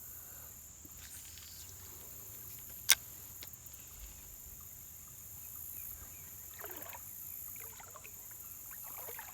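Water sloshing around the legs of someone wading waist-deep in a creek, over a steady high trilling of insects, with one sharp click about three seconds in.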